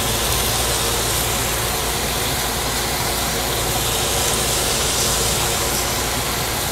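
Steady rushing of a grill exhaust vent fan over a gas grill, with T-bone steaks sizzling on the grates.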